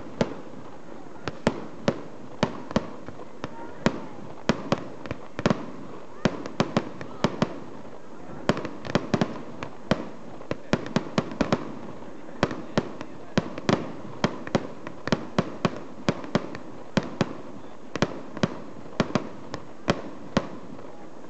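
Aerial firework shells bursting in quick, irregular succession, many sharp bangs, often two or three a second.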